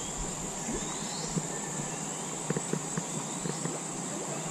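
Steady high-pitched insect drone with short bird chirps over it, and a few faint ticks.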